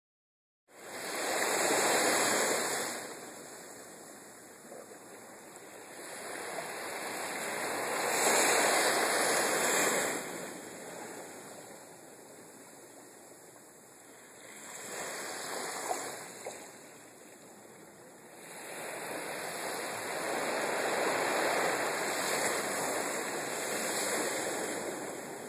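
Sea waves washing up on a beach. The surf noise swells and fades in four slow surges, a few seconds apart.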